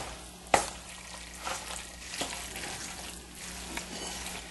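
A spoon stirring a thick, creamy macaroni, ground bison and cheddar mixture in a large bowl: a steady wet stirring noise with about five sharper knocks or scrapes of the spoon against the bowl.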